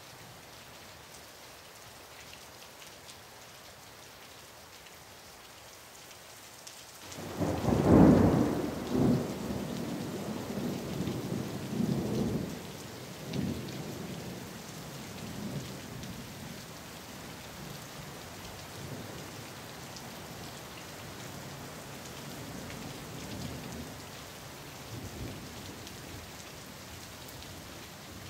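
Steady rain falling. About seven seconds in, a thunderclap breaks and rolls into a long rumble that swells again several times and slowly dies away, with fainter rumbles later while the rain keeps on.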